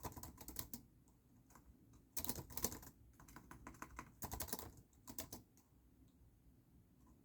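Typing on a keyboard in short bursts of rapid key clicks with pauses between them, falling quiet about five and a half seconds in.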